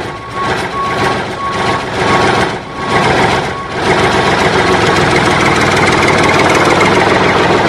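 Heavy truck engine running, with a reversing alarm beeping about twice a second for the first three seconds; the engine runs on, steadier, after the beeps stop.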